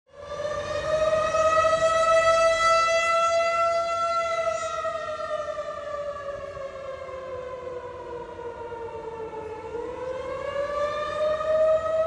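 Outdoor tornado warning siren wailing, a steady tone that slowly sinks in pitch and fades over about five seconds, then climbs back up near the end. It is sounding a tornado warning, calling people to take shelter.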